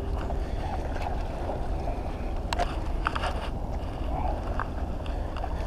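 Wind rumbling on the microphone over bay water lapping against shoreline rocks, with a few light clicks and taps about halfway through.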